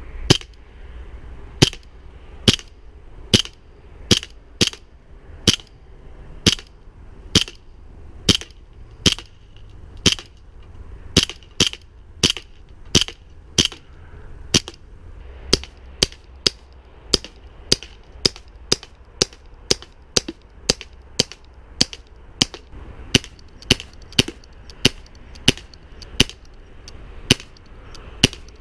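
CO2-powered BB pistol fired shot after shot, sharp cracks coming about one or two a second.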